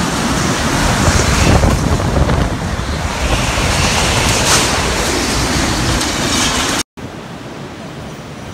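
Typhoon-force wind blowing hard, a loud rushing noise that buffets the microphone in gusts. It cuts off abruptly near the end, giving way to a quieter steady wind noise.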